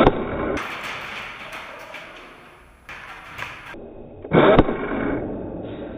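Two loud airsoft rifle shots, each a short thump with a sharp click, one at the very start and one about four and a half seconds in, with noisy rustle between them.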